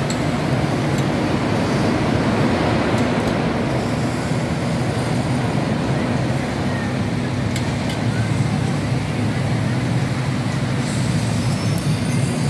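Steady background din of a large indoor mall amusement area, with a constant low hum and a few faint ticks.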